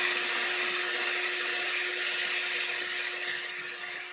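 Electric drill running steadily with a constant whine, drilling out a fastener hole in a motorcycle body panel to fit a race clip.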